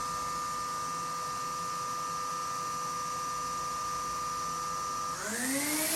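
Fanuc Robodrill CNC spindle running with a steady whine at 10,000 RPM, then about five seconds in its pitch rises quickly as the spindle is ramped up toward 20,000 RPM, the hiss growing louder.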